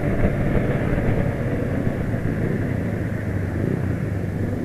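Motorbike engine running steadily while riding through traffic, with road and wind noise on the mounted camera.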